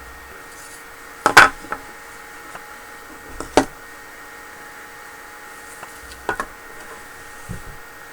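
Hard plastic 3D-printed parts knocking as they are handled: three or four sharp knocks, the loudest about a second and a half in, another about three and a half seconds in and a smaller pair around six seconds, over a faint steady room hum.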